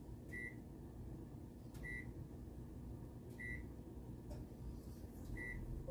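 Keypad of a 15-year-old microwave oven beeping four times, short identical high beeps about a second and a half apart, as the cooking time and power are keyed in.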